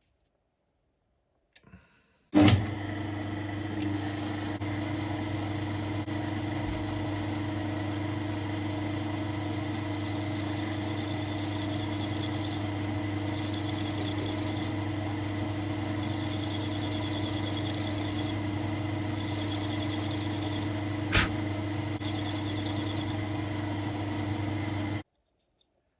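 South Bend lathe's motor and drive starting with a click about two seconds in, running with a steady hum while a tiny screw head is turned, then cutting off abruptly near the end. A single sharp click comes about three seconds before it stops.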